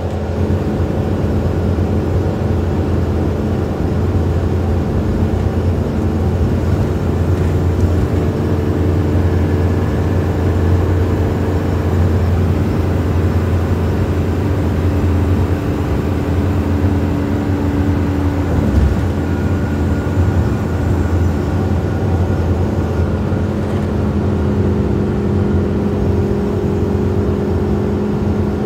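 Minibus engine and road noise heard from inside the passenger cabin while it drives along a highway: a steady low drone, with one brief bump about two-thirds of the way through.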